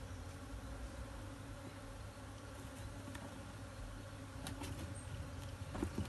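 A swarm of honey bees buzzing with a steady low hum while being moved from a cardboard box into a wooden hive box. A few light clicks come in the second half, and a knock just before the end as the cardboard box is set down.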